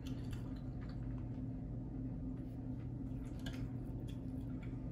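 Quiet steady low hum with faint scattered clicks. About three and a half seconds in, light clicking as a fork picks through noodles on a griddle.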